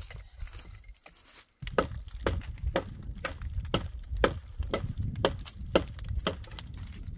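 A steady run of sharp knocks, about two a second, starting about a second and a half in, over a low rumble.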